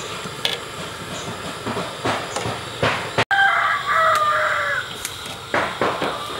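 A rooster crows once about halfway through, in one wavering call of about a second and a half. It sounds over the steady hiss and bubbling of water simmering in a wok, with a few sharp clinks of chopsticks against a wire strainer basket.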